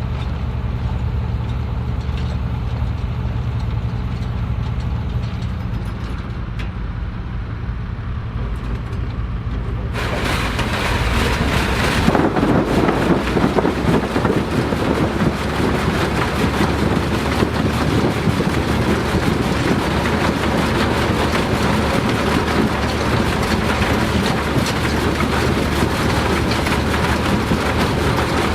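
Tractor engine running steadily at a low, even note. About ten seconds in, a louder, noisier machine sound joins that reaches much higher in pitch, and it steps up again about two seconds later and keeps running.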